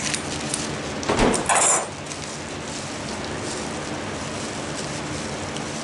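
Brief knocking and rustling about a second in as hatching eggs are handled and set in place, followed by a steady low background hum.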